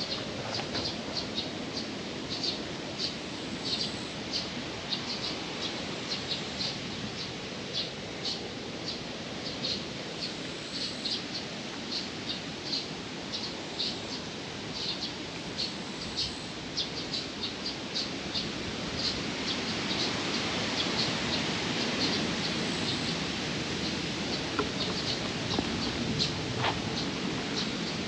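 Small birds chirping in short high notes, several a second, over a steady background hiss that thickens about two-thirds of the way through.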